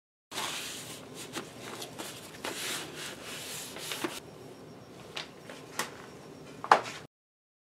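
Scrubbing and wiping a grimy metal milling-machine casting by hand over an aluminium sheet pan: a run of rubbing, scraping strokes with a few small clicks. Near the end a sharp metallic knock, the loudest sound, as the casting bumps against the pan.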